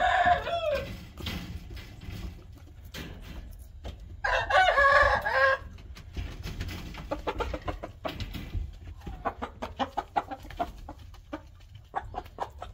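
Rooster crowing once, about four seconds in, in a single call of about a second and a half, after the tail of an earlier call at the start. The rest is a run of short sharp taps and soft clucks while the rooster pecks at feed on the gravel floor of its pen.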